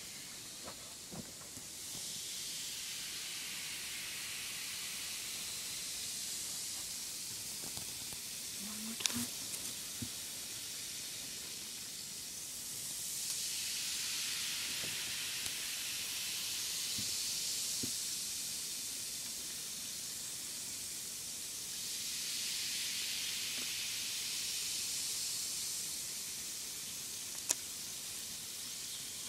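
Baking soda and vinegar fizzing inside a model volcano's plastic bottle, a high hiss that swells up and fades back three times as more vinegar goes in. There are a few sharp clicks, about nine seconds in and again near the end.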